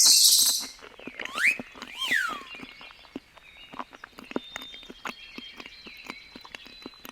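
Monkey calls: a hissing screech at the start, then about a second in two high whooping calls that sweep up and back down in pitch, over a steady run of small clicks.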